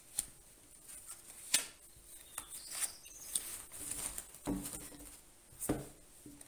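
Tarot cards being drawn from a fanned deck and laid face down on a cloth-covered table. About half a dozen soft slides and taps of card on card and on fabric, spread out with short pauses between.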